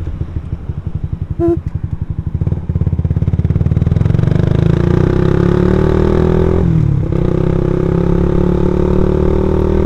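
A Suzuki Satria F150 injection's single-cylinder engine running through a racing exhaust while the bike is ridden. For about the first three seconds it gives uneven pulses at low revs. Then the revs rise steadily as the bike accelerates, drop at a gear change about seven seconds in, and settle into a steady pull.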